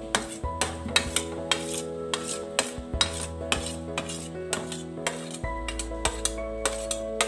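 Steel spoon scraping and clinking against a steel plate and the rim of a steel mixie (grinder) jar as cooked bottle gourd and tomato are spooned in: a quick, irregular run of sharp metallic clinks.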